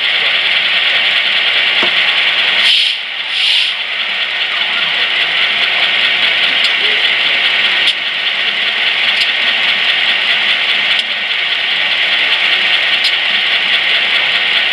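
Sound-equipped HO-scale EMD F7A model locomotive's onboard speaker playing a steady hissing, rasping noise, with two short sharper hisses about three seconds in.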